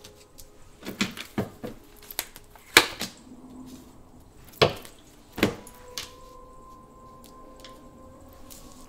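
Tarot cards being handled and laid down: a string of separate sharp snaps and taps, the loudest about three seconds in and twice around five seconds in.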